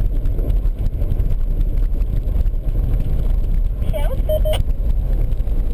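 Steady low rumble of a Subaru driving on a snowy road, heard from inside the cabin, with a brief high-pitched voice sound about four seconds in.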